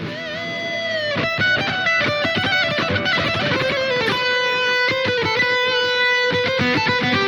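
Electric guitar with a distorted tone playing a lead line. It opens on a wavering, bent note, moves into a run of quick notes, and settles on a long held note.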